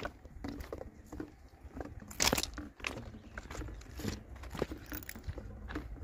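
Footsteps crunching on the loose stone ballast of a railway track, uneven crunches about twice a second, with one louder crunch about two seconds in.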